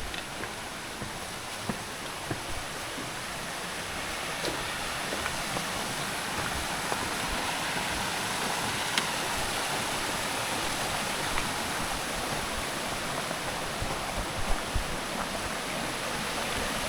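Steady rushing noise, like running water in a forest, swelling a little in the middle, with a few faint ticks and knocks scattered through.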